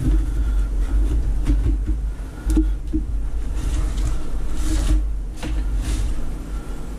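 An ulu cutting through maktak, bowhead whale skin and blubber, on cardboard: a few scattered knocks and a brief scrape just before five seconds, over a steady low rumble.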